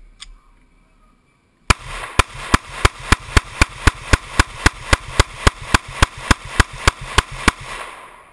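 Glock 27 subcompact pistol in .40 S&W firing a rapid string of about twenty shots, roughly three to four a second, as an extended 22-round magazine is emptied. The shots start a little under two seconds in and stop near the end, with echo building between them and fading after the last shot.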